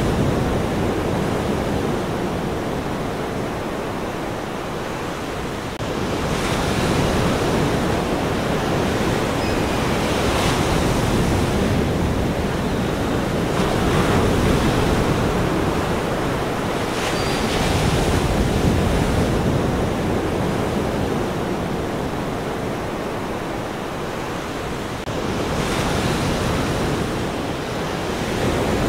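Ocean surf: a steady rush of water with waves swelling and washing in every few seconds.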